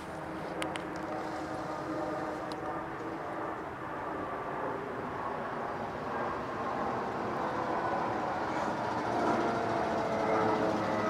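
A steady distant rumble of a passing vehicle, slowly growing louder, with several faint steady tones over it.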